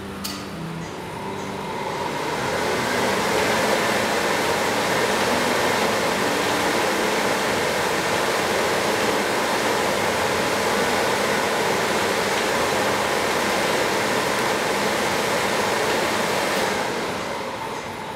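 Steady din of construction-site noise, machinery and traffic blended into an even rushing sound, fading in over about two seconds and fading out near the end.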